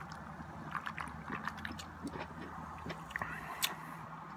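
A person sipping and swallowing sparkling water from a can, heard as small scattered wet mouth clicks and gulps.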